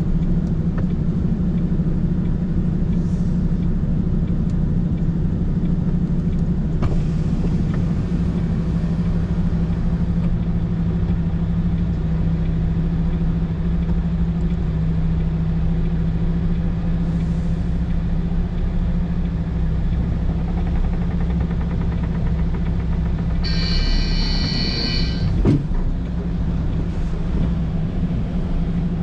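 Heavy truck engine running steadily while driving, a constant low drone. Near the end a high-pitched tone with several pitches sounds for about two seconds, followed by a single knock.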